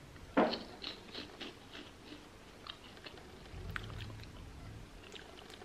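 A person chewing a crunchy strawberry-coated, banana-flavoured chip with the mouth closed. There is one sharp crunch about half a second in, then a run of small crisp crunches that thin out.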